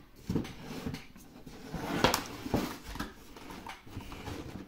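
Cardboard shoebox being handled: scattered knocks and rubbing of hands and fingers on the box, the loudest knock about two seconds in.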